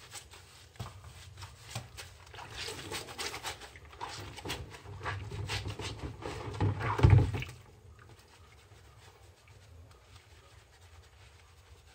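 Hands squeezing a soapy sponge and swishing water in a plastic basin to work up suds: irregular squelching and sloshing, loudest about seven seconds in. It then drops to quiet rubbing as the sponge scrubs the wet phone.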